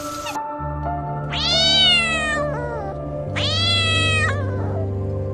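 A domestic cat meowing twice, two long meows of about a second each.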